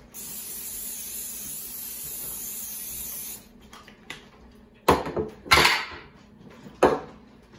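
Aerosol cooking-oil spray hissing steadily as it coats a mini muffin tin, stopping about three and a half seconds in. Then come three sharp knocks as the cap goes back on the can and the can is set down on the counter.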